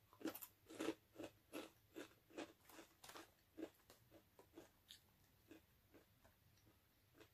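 Crunchy chewing of a Takis rolled tortilla chip: a run of crisp crunches, about two or three a second, growing fainter and sparser after about four seconds.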